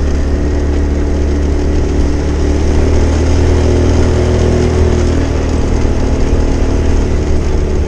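Motorcycle engine running steadily as the bike rides slowly along a road, a constant low hum with no breaks.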